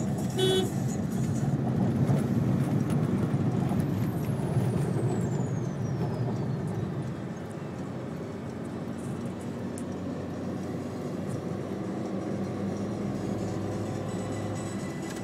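Steady engine and road noise heard inside the cabin of a small Suzuki Alto car at highway speed, louder for the first few seconds while it runs alongside a truck. A short horn beep sounds about half a second in.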